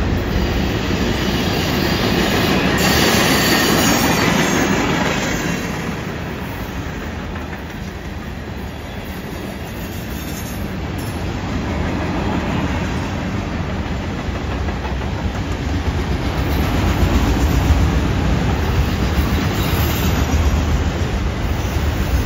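Freight train's tank cars, covered hoppers and autorack cars rolling past on a curve: a steady rumble and clatter of steel wheels on rail. It eases off about eight seconds in and grows louder again toward the end.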